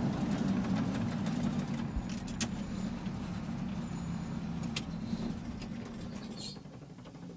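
A vehicle engine running with a steady low drone that slowly fades away, with a few faint clicks over it.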